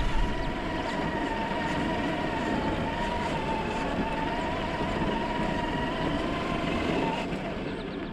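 Traxxas TRX-4 RC crawler's electric motor and gearbox whining steadily as it drives, over a rough crunching underneath; the whine drops away about seven seconds in.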